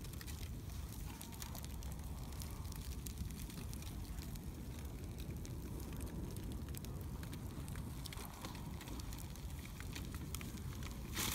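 A wood bonfire crackling, with many small scattered pops over a steady low rumble.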